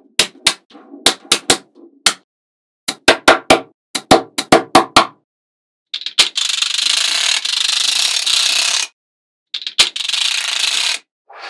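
Small magnetic balls clicking sharply together, one at a time in quick, irregular runs. Then comes a steady rushing hiss lasting about three seconds, and another shorter one near the end.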